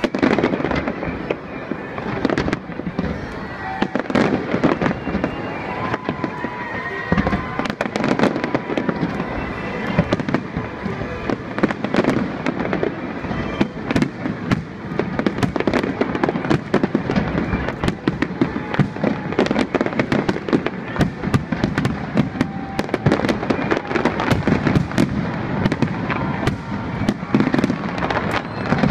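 Large aerial fireworks display: shells bursting in rapid, unbroken succession, a dense mix of bangs and crackles many times a second.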